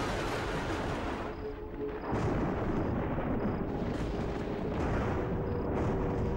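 Suspense background score: a dense, low rumble under a held note that gets louder about two seconds in.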